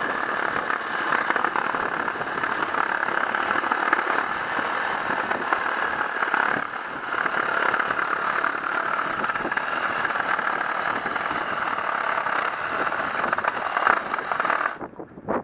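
Cordless reciprocating saw cutting through a hard firewood log, its motor and blade running continuously with a brief dip about seven seconds in, then stopping abruptly near the end.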